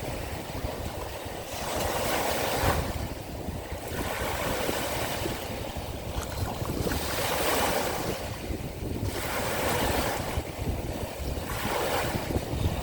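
Sea waves breaking and washing in one after another, a swell of hiss every couple of seconds, with a low rumble of wind on the microphone underneath.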